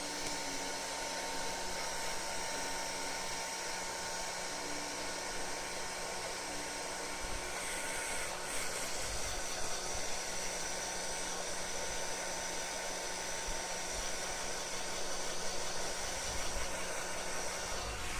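Hair dryer running steadily: a continuous rush of air with a steady motor hum and a thin whine.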